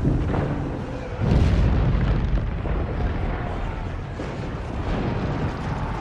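Film sound effects of an avalanche: a heavy boom about a second in, then a continuous deep rumble of snow crashing down.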